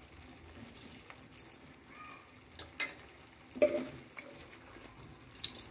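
A potato-and-pea curry simmering in a pan, bubbling faintly, with a few sharp clicks of a utensil against the pan.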